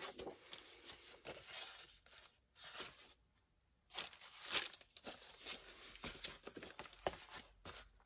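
Old book pages and loose vintage paper sheets rustling and sliding as they are leafed through and shuffled by hand, in short bursts with a brief quiet pause about three seconds in.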